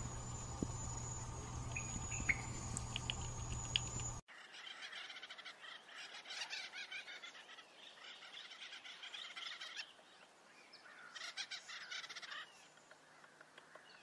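Acorn woodpeckers calling in dense, repeated chattering bursts, starting after a cut about four seconds in, running to about ten seconds, and coming again briefly near the end. Before the cut there is a steady low hum with a few sharp clicks.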